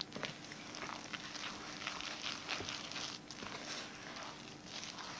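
Spoon stirring wholemeal flour and water into a dough in a glass bowl: soft, irregular scraping and crumbly rustling as the dry flour takes up the water.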